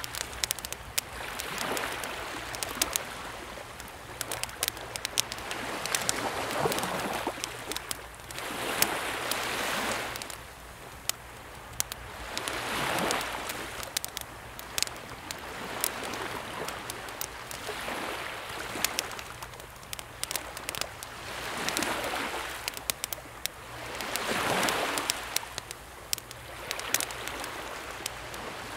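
Wood fire crackling with many sharp pops, over small, calm sea waves that swell in and wash back roughly every three seconds.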